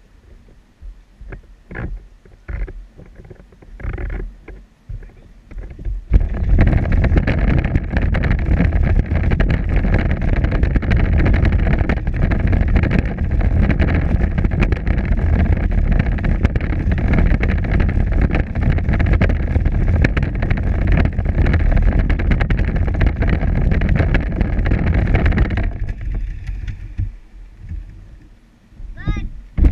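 Power Wheels ride-on toy car driving along a concrete sidewalk: a loud, steady noise of its plastic wheels rolling and its electric drive running, mixed with wind on the microphone. It starts about six seconds in, after a few scattered knocks, and dies away a few seconds before the end, where a short rising chirp is heard.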